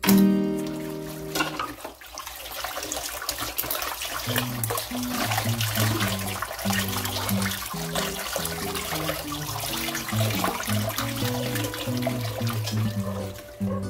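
Water from a kitchen tap running steadily into a metal pot in a stainless steel sink, starting about a second and a half in and stopping near the end, under background guitar music.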